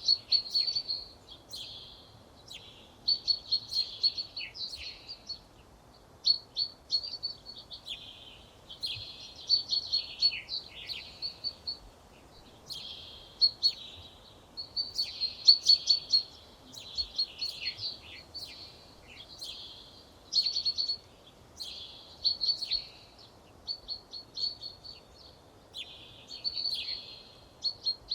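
Songbird singing short phrases of quick repeated high notes, each phrase a second or two long, one after another about every two seconds.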